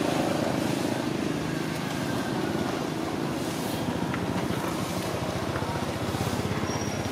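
A nearby engine running steadily at idle, a low, even rumble with a fast pulse.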